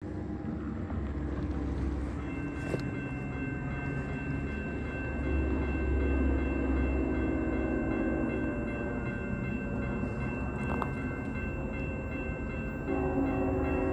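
Grade-crossing warning bell starts ringing about two seconds in, over the low rumble of an approaching CSX freight train led by an ET44AH locomotive. Near the end the train's horn sounds in the distance and the sound gets louder.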